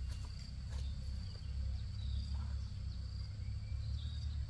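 Insects droning steadily at a high pitch, with faint chirps, over a steady low rumble.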